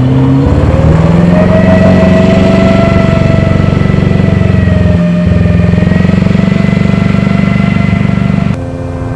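Alvis Saracen's Rolls-Royce B80 straight-eight petrol engine running with a misfire. The revs dip at first, rise about a second in and then hold steady. Near the end the sound drops suddenly and becomes quieter.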